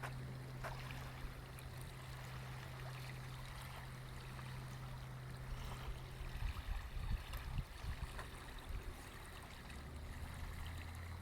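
Small waves lapping against a shoreline: a soft continuous wash with light splashes, and heavier low slaps between about six and nine seconds in. A steady low hum runs underneath and drops lower near the end.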